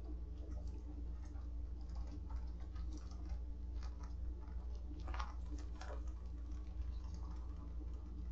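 Steady low electrical hum from a security camera's microphone, with faint scattered ticks and scratches and two louder clicks about five and six seconds in.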